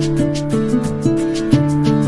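Background music: a light, plucked-string tune with a steady beat.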